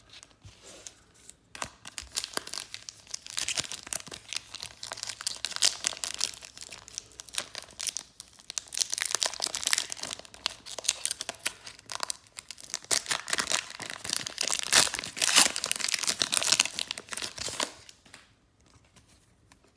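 Foil wrapper of a Panini Hoops basketball card pack being torn open and crinkled, a dense crackling that starts about a second and a half in and stops shortly before the end.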